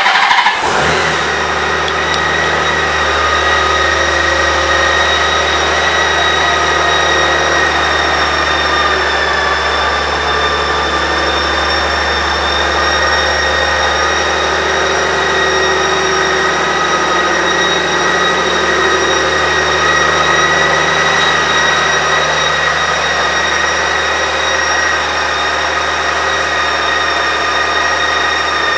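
2006 Honda Gold Wing's flat-six engine starting and catching within about a second, then idling steadily, with a steady high whine over the low engine note.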